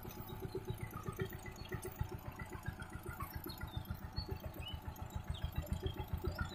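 Power tiller's single-cylinder diesel engine running under way with a steady, rapid, even chugging beat.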